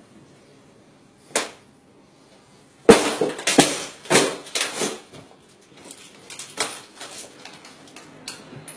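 Knocks and clatter of objects being handled at a TV stand: one sharp knock about a second and a half in, a run of loud bangs and rattles between about three and five seconds, then lighter clicks.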